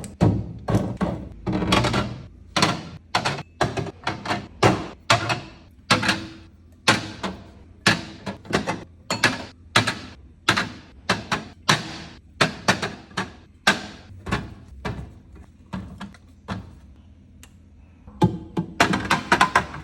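Groceries and containers being set down and arranged in a refrigerator: a long irregular run of thunks and taps, about one or two a second. They go quieter for a few seconds, then come in a quick cluster near the end.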